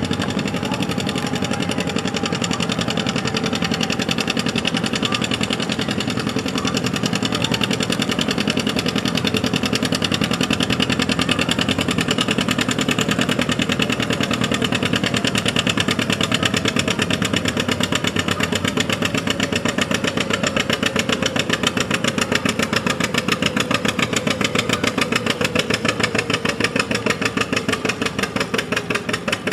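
Farm tractor engine running steadily with an even pulsing beat that grows more distinct near the end; one pitch line slowly falls.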